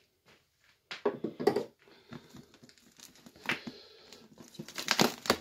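Parcel packaging being pulled open by hand: irregular crinkling and tearing noises, starting about a second in.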